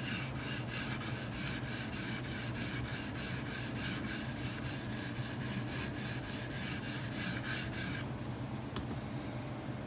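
Edge Pro diamond matrix sharpening stone drawn in quick, light strokes along a knife's edge, a steady scraping rasp that stops about eight seconds in. The light strokes test whether the stone meets the whole marker-coloured bevel.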